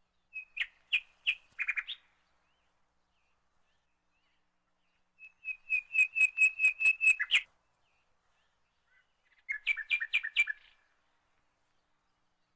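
A small bird chirping in three bursts of quick, repeated high chirps. The first comes just after the start, the loudest, a fast run of about a dozen notes, comes around the middle, and a shorter one comes near the end.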